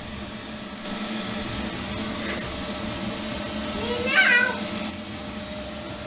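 Neato robot vacuum running with a steady hum. About four seconds in comes one short, high-pitched cry that rises and falls.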